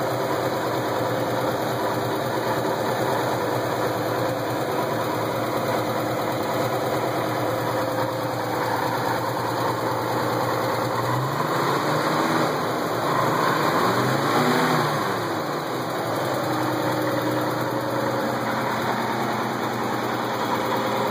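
The engine of a 1955 International R120 pickup idling steadily. About halfway through, its speed rises and falls twice in quick blips, then it settles back to idle.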